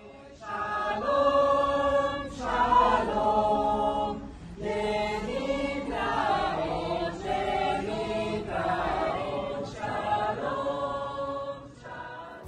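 A choir singing in slow, long-held phrases, breaking off briefly about four seconds in and again near the end.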